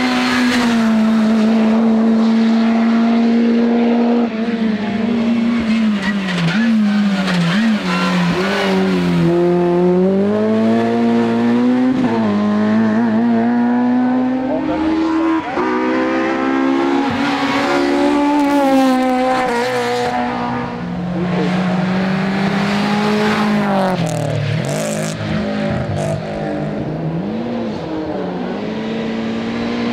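Rally car engines running hard on a hill-climb stage. The engine note holds steady for a few seconds, then rises and falls again and again through the gears and corners, with some tyre squeal.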